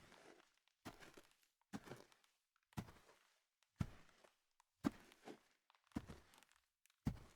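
Footsteps of a slow walk, about one step a second, seven steps, each a heel strike followed by a softer second tap.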